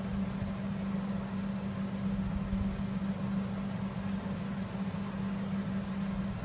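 Steady low mechanical hum, holding one constant pitch throughout.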